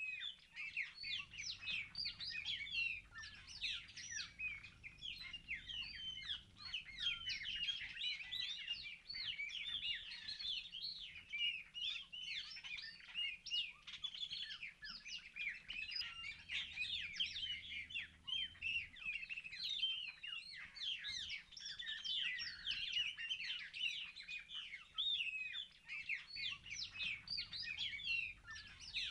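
A dense chorus of many small birds chirping, with short, quick notes overlapping without a break.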